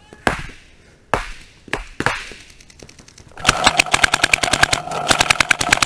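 A few separate sharp pops, then about three and a half seconds in a paintball marker, a Dye DM14, starts firing in a rapid stream of about ten shots a second. The stream is heard close up from a camera mounted on the marker's barrel.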